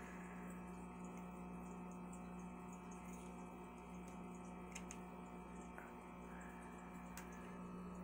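Steady low hum of running aquarium equipment, with two faint clicks about five and seven seconds in.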